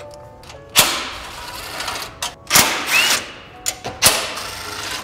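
Cordless drill with a socket extension backing out the radiator support's 12 mm bolts, in three short bursts that each start suddenly and die away over about a second.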